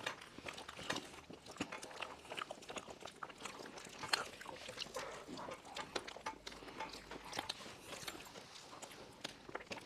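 People eating cake face-first without using their hands: faint, irregular mouth noises of biting and chewing into soft cake.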